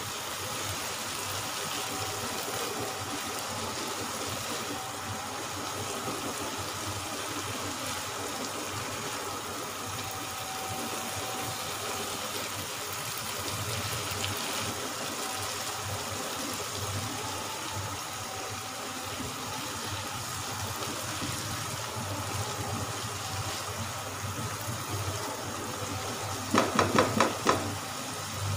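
Masala and rice balls frying in oil in a non-stick pan, sizzling steadily while being stirred with a plastic spatula: the masala is being fried until the oil separates. Near the end, a quick run of about five knocks, the spatula tapped against the pan's rim.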